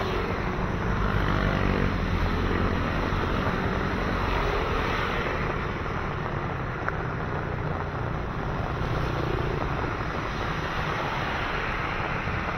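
Steady traffic noise on a wet road, tyres hissing on the pavement under a low rumble, with wind on the microphone.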